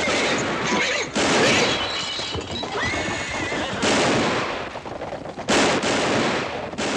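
Horses whinnying and rearing as riders fire guns: about four loud shots a second or two apart, over a general commotion.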